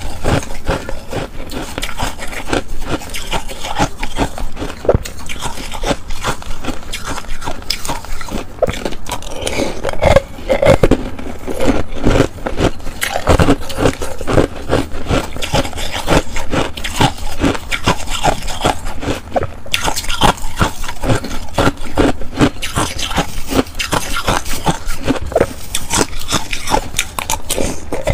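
Close-miked crunching of shaved ice and blue ice chunks being bitten and chewed: a dense, irregular run of crisp crackles and clicks, with a spoon scraping through the shaved ice.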